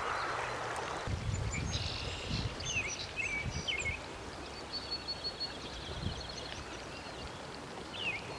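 Outdoor ambience with songbirds calling: several short high chirps in the first half and a high, steady trill lasting about a second and a half around the middle, over a steady hiss. A low rumble on the microphone runs through the first few seconds.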